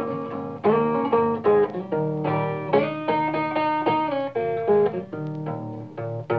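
Blues song with no singing: guitar picking a run of plucked notes in an instrumental passage.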